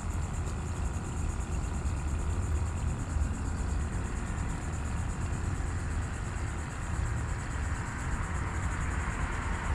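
Wind buffeting the microphone with an uneven low rumble, over a steady high buzz of insects.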